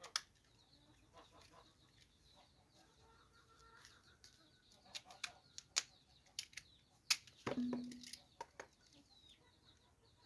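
Scattered sharp clicks and light scrapes of a knife peeling and cutting a raw sweet potato by hand. Chickens cluck faintly, with one short low cluck about three quarters of the way through.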